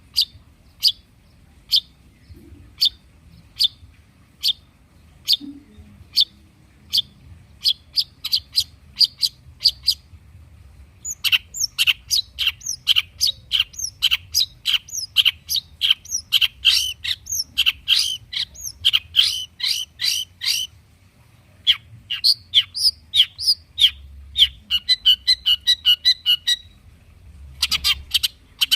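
Long-tailed shrike (cendet) calling: sharp high single notes that come faster and faster over the first ten seconds, then a long run of rapid chattering notes. After a brief pause comes another fast run, and a new burst near the end.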